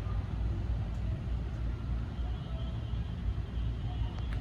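Low, steady rumble of car engines running in a parking lot, with no horn blasts.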